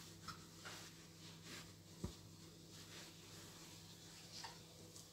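Faint rustling of a towel being rubbed over the hands, in a few soft strokes, with one short knock about two seconds in over a low steady hum.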